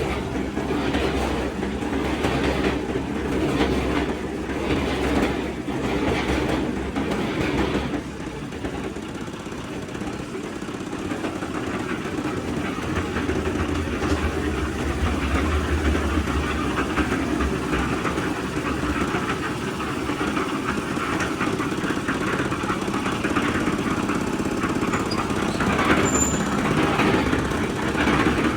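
Construction machinery running, a steady rumble with a rhythmic clatter that is strongest in the first several seconds.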